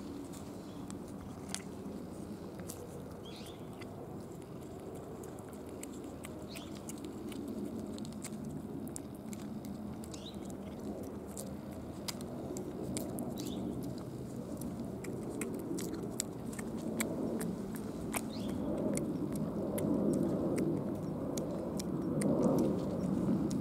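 Cat licking paste treat from a squeeze tube held in the hand: a steady run of small, quick, irregular wet tongue clicks. Under it is a low rushing background noise that swells near the end.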